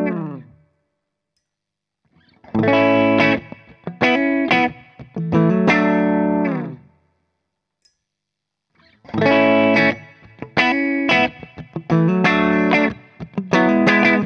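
Clean electric guitar riff on a Les Paul through an AmS Tornado 20 tube amp head with a little reverb, played twice with a pause between. This is a test of the amp's bright switch: it is flipped in the pause, with a faint click, so the two passes compare its treble setting.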